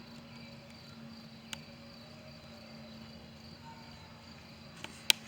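Insects buzzing steadily and high-pitched in the background, with a faint click about a second and a half in and a sharp louder click near the end.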